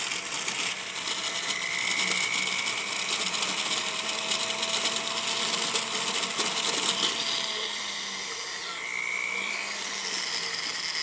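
Small rotary tool running with a steady whine and hiss as its bit smooths and removes tool marks from a metal lobster claw clasp; the whine shifts a little about two-thirds of the way through.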